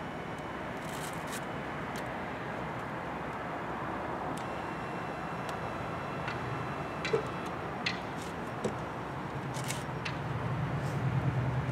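Steady outdoor background noise with a few short, light clicks and rustles as a person is moved into a car's driver seat; a low hum grows louder near the end.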